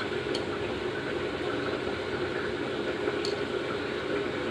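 Steady low hum and hiss of a running machine in the kitchen, with two light clinks of a steel spoon against a steel bowl as sauce is scooped.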